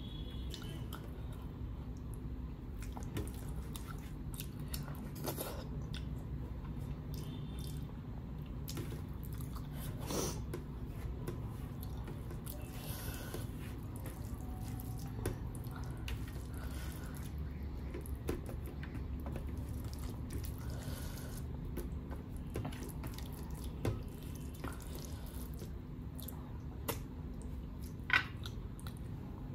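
Wet, squelching eating sounds: fingers mixing and scooping jeera rice and dal on a steel plate, with chewing, over a steady low hum. A few short clicks are scattered through, the sharpest near the end.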